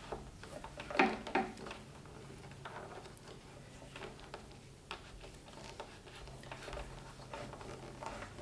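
Electrical cable being fed by hand through a channel in the bench frame: light, scattered taps and rubbing, with one louder knock about a second in.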